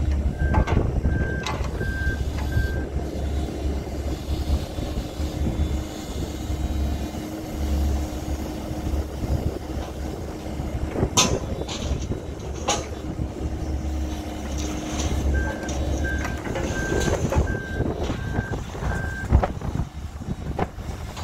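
2014 Bobcat E26 mini excavator's diesel engine running steadily while the arm and bucket work. Its travel alarm beeps in two runs, one near the start and another in the last third. Two sharp knocks come about halfway through.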